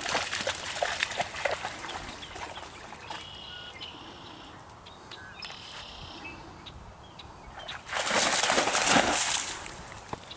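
Wading through a flooded cattail marsh: water sloshing and dry reeds rustling. A bird calls twice in the middle, and a louder rush of noise comes near the end.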